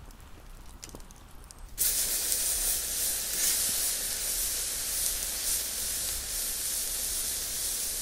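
Faint crackles from an oak wood fire, then about two seconds in a ribeye steak on the hot grill grate starts sizzling with a loud, steady hiss as it sears.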